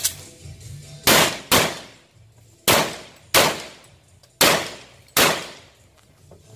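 Six shots from a Glock 41 .45 ACP pistol fired in three pairs, each shot with a short ringing tail.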